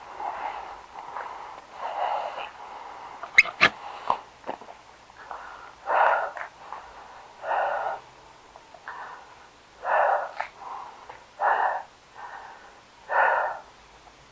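A player's heavy breathing close to the microphone, a breath about every one and a half seconds in the second half, with a few sharp clicks about three and a half seconds in.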